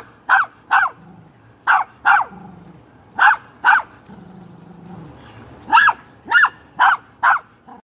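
Small curly-coated dog barking in sharp pairs, about ten barks with short pauses between the pairs, and a low growl in the gaps: agitated barking at live crawfish in her pool.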